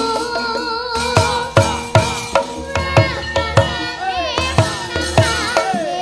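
A young girl sinden singing a Javanese song with vibrato and sliding pitches, over gamelan accompaniment. Sharp drum strokes, in the style of the kendang, keep time at about two a second beneath the steady ringing tones of the metallophones.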